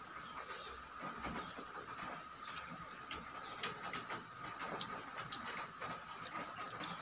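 Close-miked eating sounds: chewing with many small, irregular crunches and mouth clicks.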